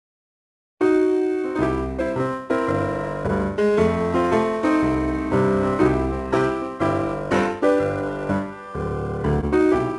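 Background piano music: a dead silence, then a new piece starts about a second in with a steady run of struck notes.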